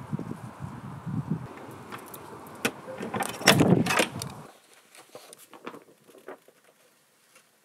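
Keys jangling and a key clicking and rattling in a front-door lock, loudest about three and a half seconds in, over a steady outdoor rumble. The sound cuts off at about four and a half seconds to a quiet room with a few faint ticks.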